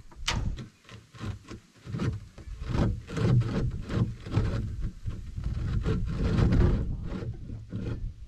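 Steel axle of a lick roller being worked and pulled out of the tub's side wing: irregular scraping, rubbing and knocking of metal against the tub, busiest in the middle seconds.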